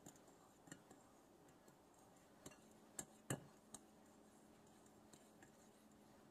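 Faint scattered clicks and light ticks of fingers mixing breadcrumbs and seasoning in a glass bowl, the hand knocking against the glass now and then; the loudest clicks come about three seconds in.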